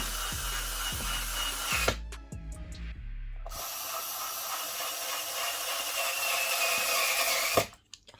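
Cordless electric screwdriver motor whirring in two runs, the first stopping about two seconds in and the second starting about a second and a half later and stopping near the end, with a few clicks between. Its battery is low and needs charging.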